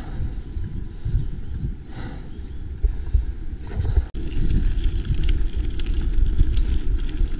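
Uneven low rumble of wind buffeting the microphone as a mountain bike rolls along, with one sharp click about four seconds in.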